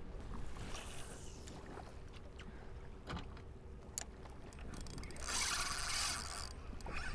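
Handling noise of a fishing rod and spinning reel on a drifting boat: scattered clicks and rubbing over a low steady background of water and wind, with a brief loud hiss about five seconds in.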